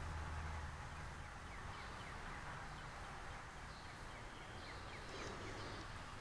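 Quiet background: a faint low hum that fades out in the first second or so, then a run of faint, quick chirps.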